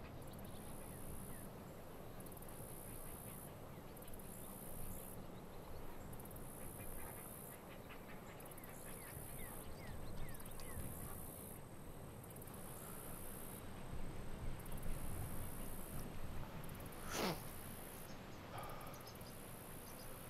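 Lakeside ambience with birds calling. A high hiss pulses on and off about every second and a half, and one sharp call stands out near the end.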